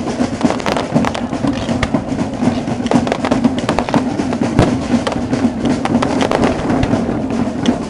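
Fireworks going off in quick succession: a dense, continuous run of bangs and crackles, with a steady low hum underneath.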